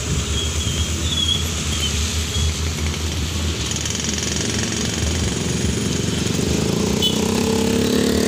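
Road traffic on a wet road: a low, pulsing engine rumble throughout, with a car and a motorcycle passing close near the end, their engine note growing louder.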